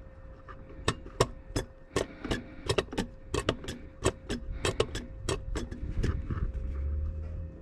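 A run of sharp, irregular clicks, about two or three a second, from hand tools working on metal parts of the power steering, with a steady faint hum behind them and a low rumble near the end.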